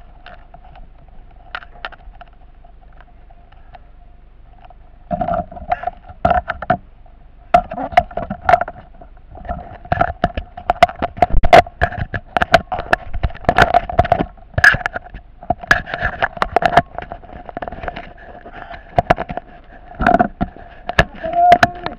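Footsteps and equipment knocking and scraping as a firefighter climbs stairs. There are many sharp thumps and clatters, starting about five seconds in, over a steady tone.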